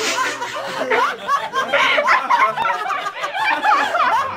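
A woman and a man laughing without a break, her laughter high and giggling.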